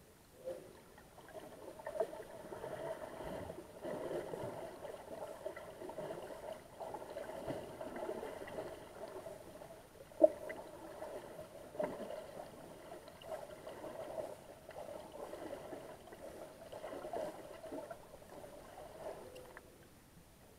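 Muffled underwater sound picked up by a submerged camera: a steady hum with a shifting wash of water noise and a few sharp knocks, the loudest about ten seconds in.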